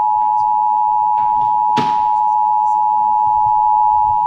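Emergency Alert System attention signal: the steady two-tone alert (about 853 and 960 Hz together) that opens a national EAS test message.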